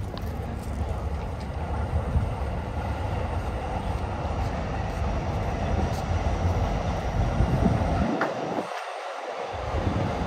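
Electric commuter train running along the rails at a station, a steady rumble of wheels and motors; the low rumble drops away briefly near the end.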